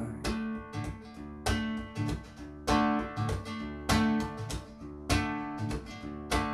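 Acoustic guitar strummed in a steady rhythm, about one stroke every second and a bit, each chord ringing on over a sustained low note, played back through Epos ES11 bookshelf speakers and heard in the room.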